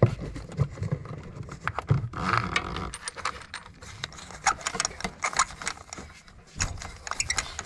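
Irregular clicks, knocks and scrapes of a spark plug socket on a long extension and a gloved hand working in the cramped space beside a boxer engine, as the rear spark plug is put in by hand.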